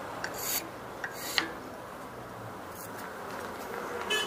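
A few short scraping strokes on a wooden hammer handle clamped in a vise, spaced about a second apart, then a sharp metallic clink with a brief ring near the end.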